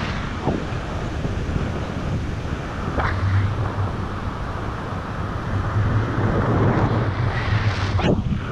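Wind rushing over the camera microphone on a paraglider in flight, a steady low rumble with a few sharper gusts, about half a second, three seconds and eight seconds in.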